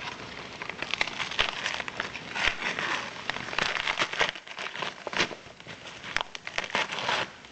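Packaging crinkling and rustling as a parcel is opened by hand, with many irregular crackles and a brief lull about halfway through.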